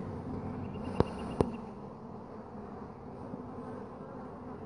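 Honeybees buzzing steadily over an open hive full of frames, with two sharp clicks about a second in.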